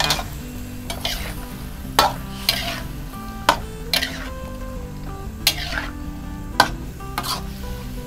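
Shrimp, squid and vegetables stir-frying in a metal wok: a steady sizzle, with a metal spatula scraping and clanking irregularly against the pan.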